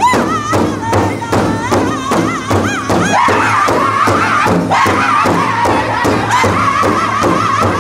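Powwow drum group: a large hide-covered drum struck in steady unison beats, about three a second, under high-pitched singing. One lead voice sings alone at first, and the whole group of singers joins in about three seconds in.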